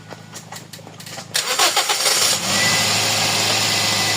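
Toyota Vios four-cylinder petrol engine cranked by the starter about a second in, catching after about a second and settling into a steady idle. The engine has a cylinder 4 misfire (fault code P0354) traced to the ignition coil circuit.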